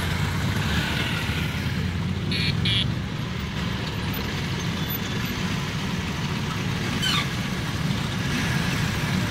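A mass of Vespa scooters riding together in a slow column, their small engines blending into a steady low drone. Two short horn beeps sound a little over two seconds in.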